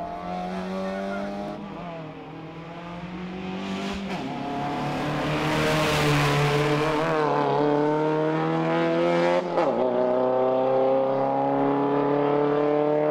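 Isuzu Gemini rally car's engine pulling under acceleration, its note climbing slowly. About ten seconds in the pitch drops sharply and starts climbing again, as at a gear change.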